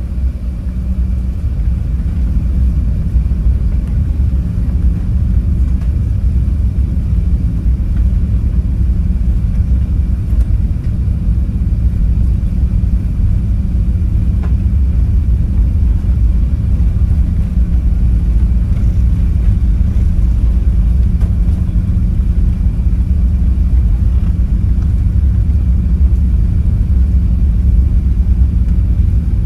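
Steady low cabin rumble of an Airbus A380-800 taxiing on its engines at low thrust, heard inside the upper-deck cabin, with a faint steady hum over it. It grows a little louder in the first few seconds, then holds even.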